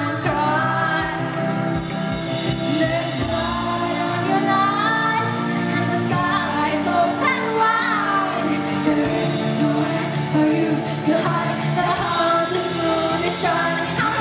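Woman singing live with a band, holding long, gliding notes over a steady accompaniment of drums and keyboards.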